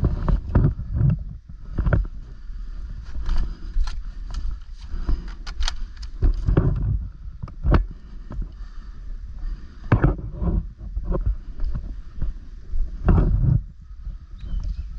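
Rumbling handling and movement noise with scattered, irregular sharp clicks and knocks; no steady burst of gunfire.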